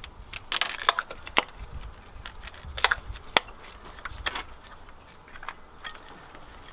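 Spark plug wires being handled and their rubber boots pushed down onto the spark plugs: a handful of sharp clicks amid the rustle of the wires.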